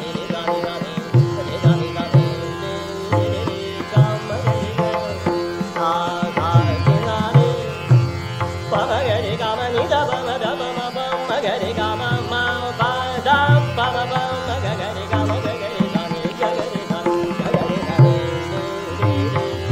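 Hindustani classical vocal performance of raga Yaman, a singer's winding melodic line over a steady drone and tabla strokes. The voice comes in about six seconds in; before that only the drone and tabla are heard.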